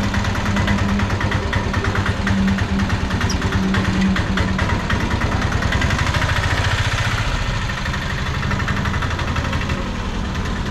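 A vehicle's engine running steadily as the vehicle is backed out in reverse.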